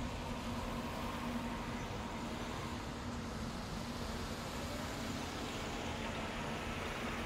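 Steady hum and rush of city traffic, even throughout, with a constant low hum underneath.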